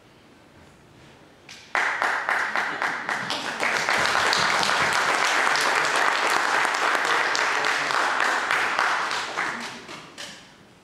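Congregation applauding: clapping breaks out suddenly about two seconds in, swells into steady applause and dies away near the end.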